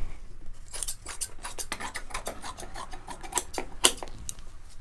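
Scissors snipping through upholstery fabric, a quick run of cuts with the blades clicking, as excess cover fabric is trimmed away from a seat frame.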